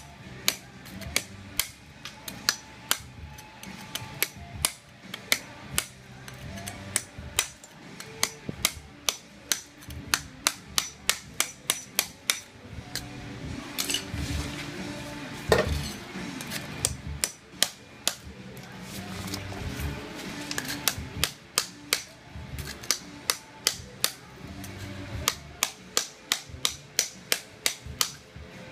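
Hammer striking a hand-held chisel to chip ceramic floor tile off the slab: sharp metallic blows in quick runs of about two to three a second, with a pause around halfway broken by one especially loud strike. Background music plays underneath.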